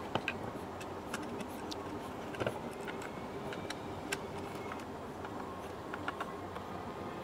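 Hand screwdriver turning neck-plate screws into a guitar neck, with scattered small clicks and ticks of metal screws and hardware over a steady low hum.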